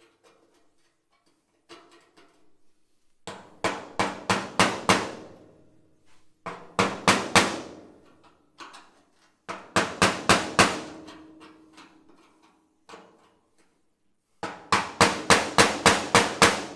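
Hammer driving an old screwdriver against the inside of a rusty 1928 Ford Model A quarter panel, knocking out a bent-in, rust-weakened spot. A few light taps, then runs of quick sharp metal blows, several a second, with short pauses between, each run leaving a brief ring.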